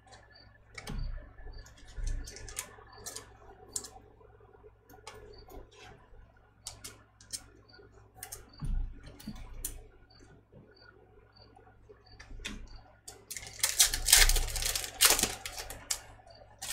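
Football trading cards handled by hand as they are flicked through one by one: scattered light clicks and slides of card stock, with a louder stretch of rustling and sliding about two seconds before the end.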